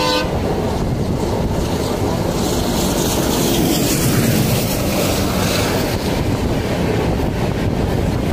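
Wind rush and rumbling running noise of a passenger train at speed, heard from its open doorway, with a horn note cutting off right at the start. Near the end, a train of AC coaches is passing on the next track.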